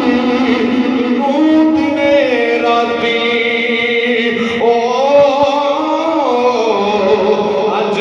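A man chanting a devotional melody into a microphone, in long held notes that slide up and down with ornamented turns.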